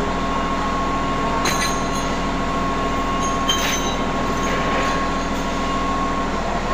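Heavy industrial machinery running with a steady drone and a constant high whine. A couple of faint clinks sound about one and a half and three and a half seconds in.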